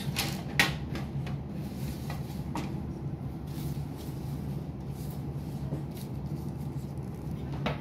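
A few light taps and rustles of a paper tissue and alcohol-wipe packets being set down on a wooden desk, the sharpest about half a second in, over a steady low hum.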